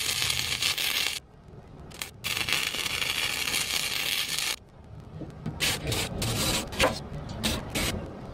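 Arc welding a steel chain hook onto a tractor loader bucket: the steady crackling hiss of the arc in three runs, about a second, a brief tap, then about two seconds. After it come scattered clicks and scrapes.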